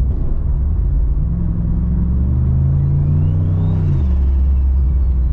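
Turbocharged LS V8 of a VF Commodore pulling under light throttle. The engine note climbs steadily in pitch for about two and a half seconds, then the revs drop abruptly about four seconds in, with a faint high whistle rising and falling alongside.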